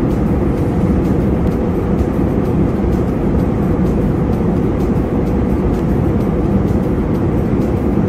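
Jet airliner cabin noise in cruise: a steady, low rushing noise from the engines and airflow, unchanging throughout.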